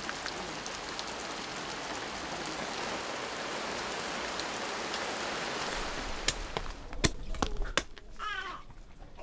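Steady rain falling, with water streaming off a roof edge. About six seconds in, sharp knocks begin: a machete chopping kava root.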